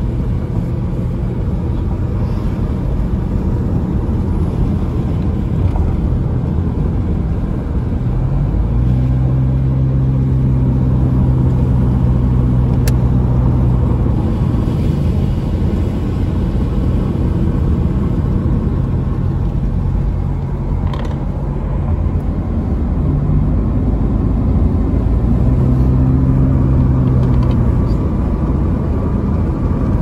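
Car cruising uphill, heard from inside the cabin: steady tyre and road noise under a low engine hum. The hum grows stronger about eight seconds in and again near the end.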